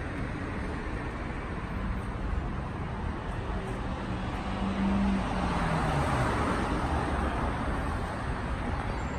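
Street traffic noise with a steady low rumble. A vehicle passes about halfway through, swelling louder as its engine tone falls in pitch.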